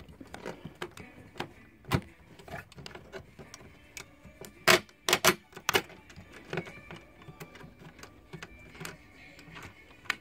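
Irregular plastic clicks and knocks from a magnetic cabinet lock being handled and pressed into place on a cupboard door, with a cluster of four sharp clicks about halfway through.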